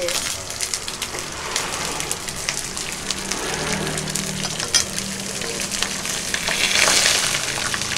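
Food frying in hot oil, a steady sizzle with many small crackles and some stirring, swelling louder a little before the end.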